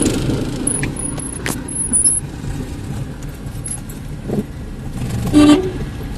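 Motor vehicle running, a steady low rumble, with a few scattered clicks and a short pitched toot about five and a half seconds in.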